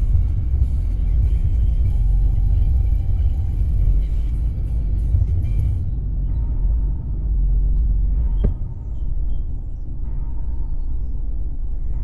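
Low, steady rumble of an off-road vehicle driving slowly along a rough dirt trail, picked up by a camera on its hood. Music plays over it and stops suddenly about six seconds in, and a single sharp knock comes a couple of seconds later.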